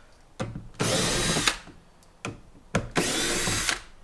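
Cordless drill with a 5 mm socket unscrewing the door speaker's mounting screws in two short, even bursts of about a second each, with small clicks in between as the socket is seated on the next screw.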